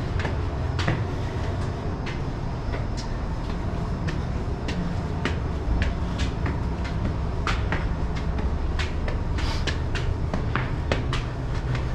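Footsteps climbing stairs: a string of sharp, uneven taps over a steady low rumble.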